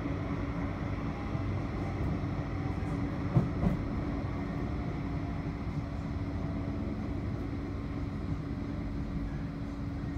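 Interior running noise of a Bombardier Flexity 2 tram in motion: a steady rumble of wheels on rail under a constant electric hum, with two quick knocks close together about a third of the way in.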